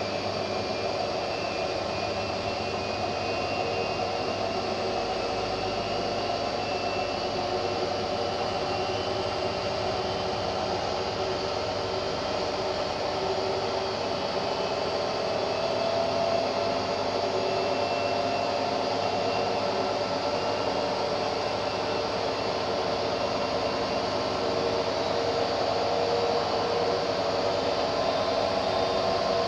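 Hotpoint front-loading washing machine running with a steady hiss and hum, growing slightly louder about halfway through and again near the end.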